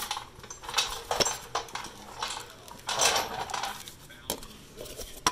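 Metal clinking and rattling in a few short bursts, with sharp clicks about a second in and near the end: tools and parts being handled at a car's front wheel hub and brake assembly.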